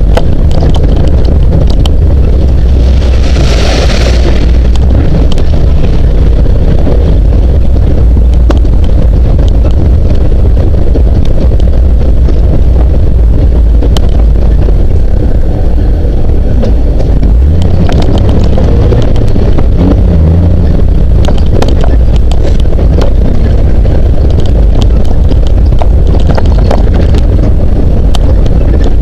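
Classic Jeep CJ7 running at low speed along a rough dirt trail, a steady low rumble with wind buffeting the microphone and scattered knocks from the bumpy track. A brief hiss about three seconds in.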